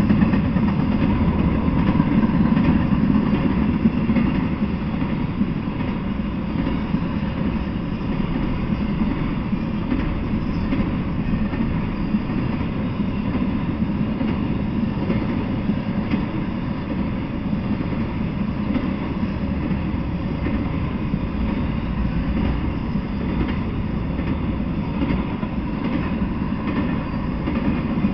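Intermodal freight train's cars rolling past, a steady rumble of steel wheels on the rails, a little louder in the first few seconds.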